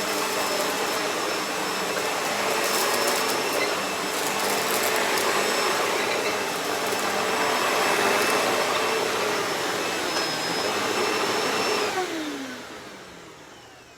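Hoover Deluxe Elite Rewind upright vacuum cleaner running steadily with a high whine. Near the end it is switched off and the motor winds down, its pitch falling away.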